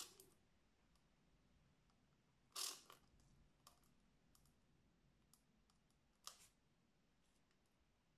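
Near silence, broken by a few faint clicks and scuffs from handling the plastic model and brush. The clearest comes about two and a half seconds in and another about six seconds in.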